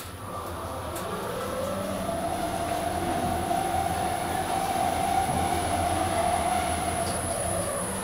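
An OTIS Gen2 gearless elevator heard from inside the car as it travels upward, with a steady hum under a drive whine. The whine rises in pitch about a second in as the car speeds up, holds steady, then drops near the end as the car slows for the floor.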